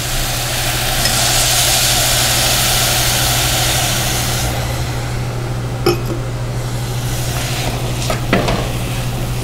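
Red wine hitting a hot saucepan of wilted red cabbage and sizzling, loudest for the first few seconds and then settling to a quieter simmering hiss. A couple of light knocks come through later, over a steady low hum.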